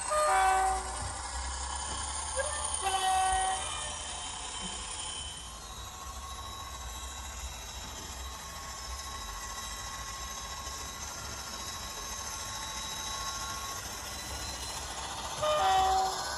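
Model Class 57 diesel locomotive's ESU LokSound sound decoder playing through its small speakers: the recorded diesel engine runs steadily while the horn sounds three short blasts, two in the first few seconds and one near the end.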